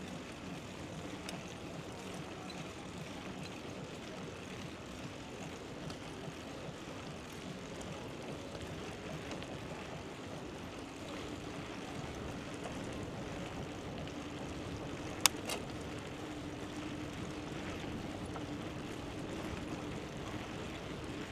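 Steady rush of riding noise from a bicycle on the move, wind and tyres picked up by a chest-mounted action camera. A faint steady hum comes in about halfway through, and a single sharp click stands out about three-quarters of the way in.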